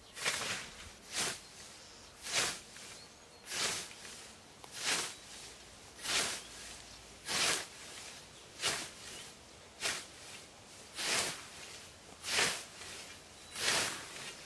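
Hand scythe (litovka) swishing through tall grass, about a dozen strokes at a steady rhythm of one every second and a quarter.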